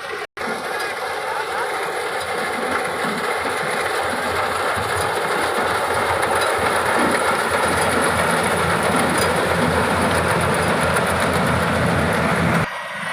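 Yanmar AW70GV combine harvester running steadily: a dense mechanical din of its diesel engine and threshing machinery. It drops out briefly just after the start and cuts off abruptly near the end.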